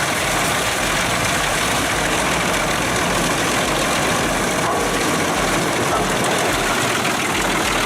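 A machine engine running steadily, with a dense, even noise that starts abruptly.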